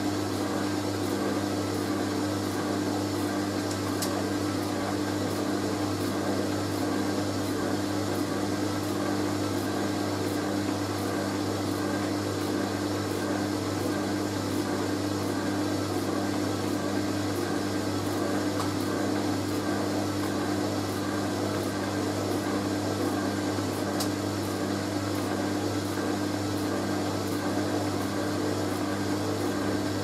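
Hoover A3060 Electronic 1100 automatic washing machine running with a steady, unchanging motor hum.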